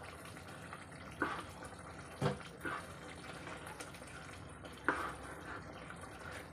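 A plastic ladle stirring a watery vegetable curry in a nonstick pan: liquid sloshing, with several short knocks of the ladle against the pan.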